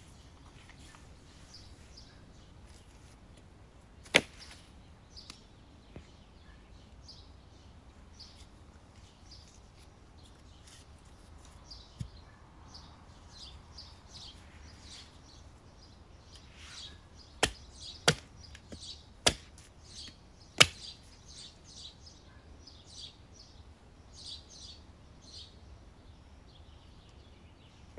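Sharp knocks of wood being struck while sticks are worked with a knife: one about four seconds in, then four in quick succession about two-thirds of the way through. Faint short chirps sound throughout.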